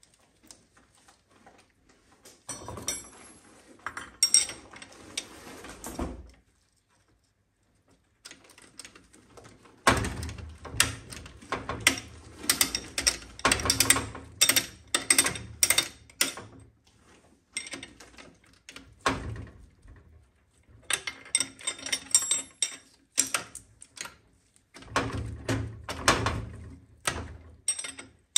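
Metal parts and hand tools clicking and clanking in irregular clusters, with a short lull near the start and another about a third of the way in, typical of hands-on work on an automatic transmission.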